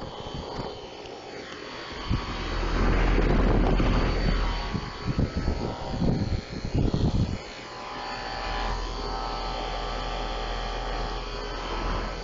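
Central air conditioner outdoor unit running: steady fan whir and low compressor hum. Wind buffets the microphone in a loud, choppy swell from about two to seven seconds in, then the whir carries on steadily.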